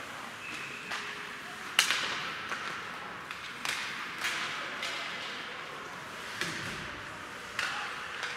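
Ice hockey play on an indoor rink: sticks knocking against the puck and ice with skates scraping, about eight sharp knocks echoing in the hall, the loudest one about two seconds in.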